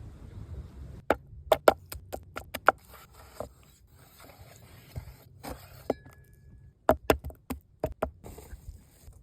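Sharp knocks and clicks of hand food preparation, coming in uneven clusters with short pauses between, over a low rumble at the start.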